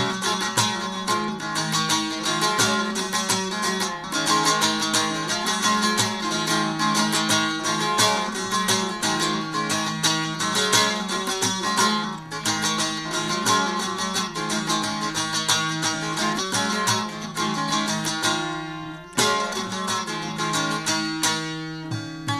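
Bağlama (long-necked Turkish saz) played solo: a fast strummed and plucked melody over a steady low drone, with a short break near the end.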